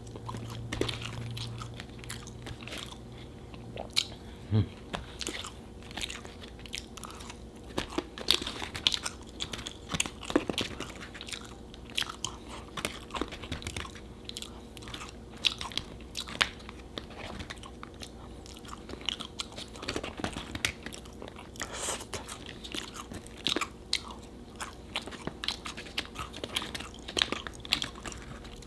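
Close-miked eating of a fast-food burger and fries: repeated bites, crunching and wet chewing, with quick clicks and smacks throughout.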